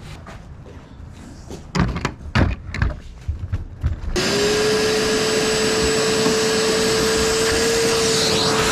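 A few knocks and clatter, then about halfway through a shop vac switches on and runs steadily with a constant whine, vacuuming up the debris left from cutting a hole.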